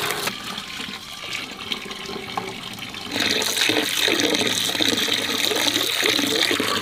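Tap water pouring in a steady stream into a metal bucket full of water, with splashing as wood ear fungus is rubbed and rinsed by hand in it. The running water gets louder about three seconds in and then stays steady.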